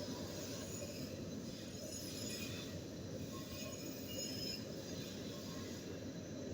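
Steady running noise of a machine tool cutting metal, with faint scattered high-pitched squeaks and clinks.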